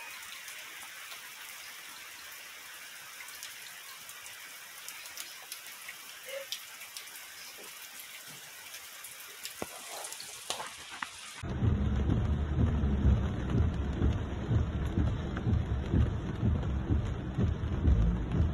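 Steady rain falling: a soft hiss with scattered drips and taps. About eleven seconds in it changes abruptly to much louder, heavy rain over a flooded street, with a strong low rumble underneath.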